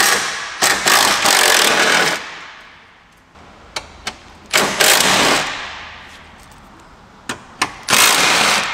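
Power tool run in bursts, several quick pulses in the first two seconds, then two more of about a second each, one near the middle and one near the end, with a few sharp clicks between them. It is taking out fasteners so the radiator can be pushed back.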